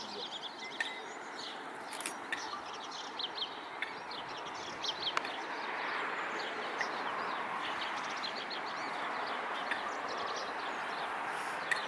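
Many small birds chirping in quick, high twitters throughout, with a few sharp clicks. A steady rushing background grows louder about halfway through.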